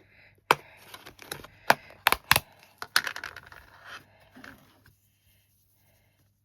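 Small hard craft items being handled: a string of sharp clicks and knocks with some scraping, settling down about five seconds in, as a pot of black embossing powder is picked out and readied.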